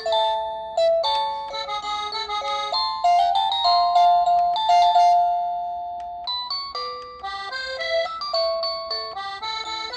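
Wireless doorbell receiver playing its built-in chime tunes one after another at its loudest volume setting. The tunes are short electronic melodies of clear single notes, with a new one starting every few seconds.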